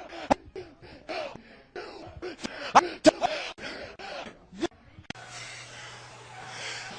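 Short, choppy human vocal sounds such as gasps and exclamations, broken by several sharp smacks, then an abrupt cut about five seconds in to a steady noisy background with a low hum.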